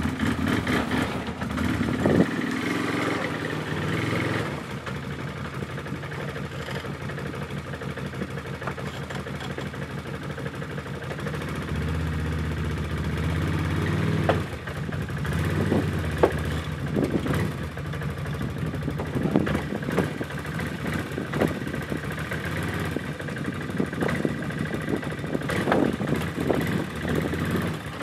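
Tracked ATV's engine idling steadily, rising in a brief rev about twelve seconds in, with several sharp knocks in the second half.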